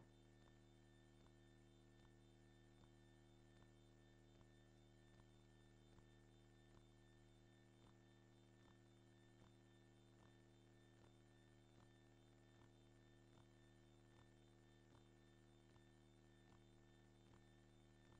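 Near silence: only a faint steady hum, with faint soft ticks a little more than once a second.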